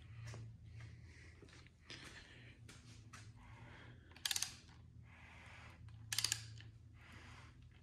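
Two short bursts of rapid clicking, about two seconds apart, over a faint steady low hum.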